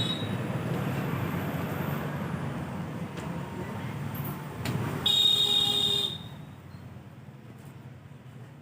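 Steady rumble of passing road traffic, with a short high-pitched toot about five seconds in; the rumble dies down soon after.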